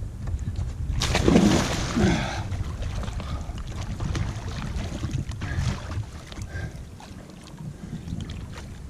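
Water splashing and sloshing around a sit-on-top kayak, with a louder splash about a second in, over a steady low rumble of wind on the microphone.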